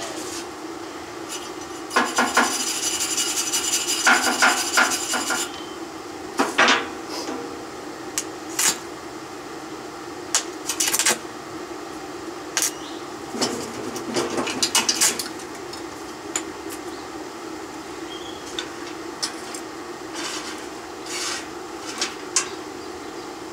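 A wire brush and a chipping hammer cleaning slag off a fresh weld on steel. First comes a few seconds of rapid scraping, then scattered sharp metal taps and short scrapes, over a steady hum.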